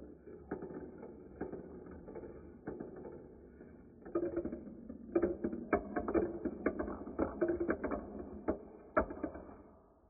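Several marbles rolling along plastic marble-run track pieces on a toy-brick base, a continuous rolling rattle with many sharp clicks as they knock against the track joints and each other. The clatter gets busier about halfway through and dies away just before the end as the marbles come to rest in a queue.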